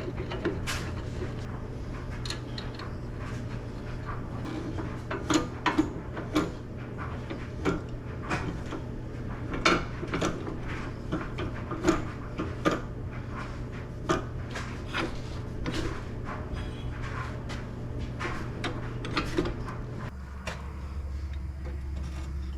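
Irregular knocks and clatter of hard objects being handled, a few of them loud, over a steady low hum that shifts lower in pitch about twenty seconds in.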